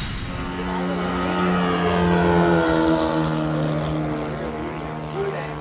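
Engine of a radio-controlled model airplane flying past overhead, its droning note growing louder toward the middle and then fading, with the pitch sinking slightly as it moves away.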